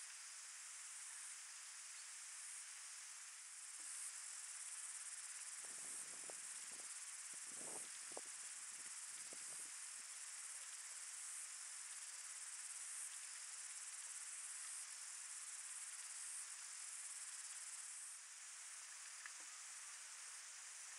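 Faint steady high-pitched hiss, like a distant insect chorus, with a few soft low rustles or knocks near the middle.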